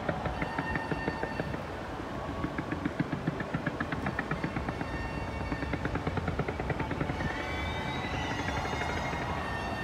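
Fireworks going off in a fast run of pops and crackles over a low rumble, the crackling easing after about seven seconds.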